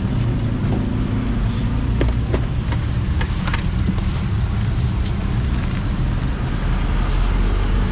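Steady low engine rumble of nearby road traffic, with a few light clicks and taps from peanuts and the stone mortar and pestle being handled.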